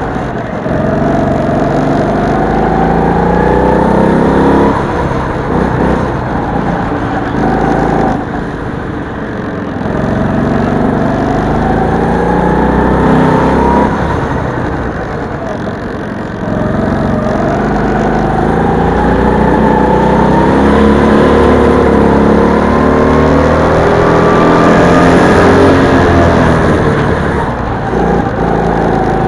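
Rental go-kart engine heard onboard, revving up along the straights and dropping off into the corners, its pitch climbing and falling several times over the lap, with one long climb in the second half.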